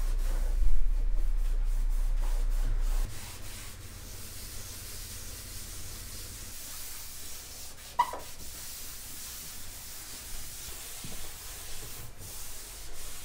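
A cloth rag rubbing and wiping across the sanded wooden deck of a skiff, a soft steady scrubbing that clears dust from the surface before priming. There is one short squeak about eight seconds in.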